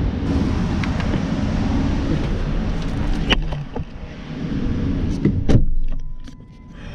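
Rustling and handling noise as someone climbs into a car, then a few clicks and knocks and a louder thump about five and a half seconds in as the car door shuts.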